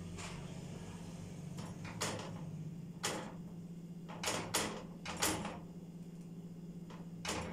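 A spoon scraping and knocking against a stainless steel saucepan as thick strawberry jam is stirred, in a series of irregularly spaced strokes over a low steady hum.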